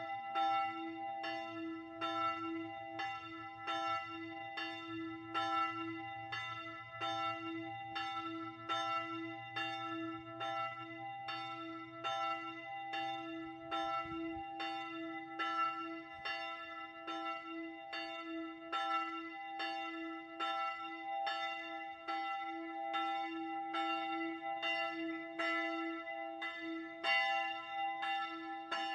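The third bell of the Kreuzkirche in Wehrendorf ringing on its own. Its strokes fall evenly, and each one leaves a lingering ringing tone.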